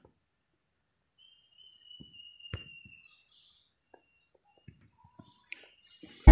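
Steady high-pitched shrilling of an insect chorus, with a few faint clicks and a thin faint whistle about a second in.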